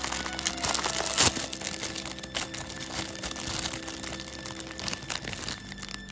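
Thin clear plastic food bag crinkling and crackling as hands pull it open, with one sharp, loudest crack about a second in. The crackling thins out toward the end.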